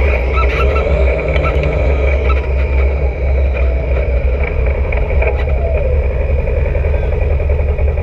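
Polaris RZR side-by-side's engine and drivetrain running loud and steady, heard from inside the open cab. The revs drop away about five to six seconds in as the machine slows.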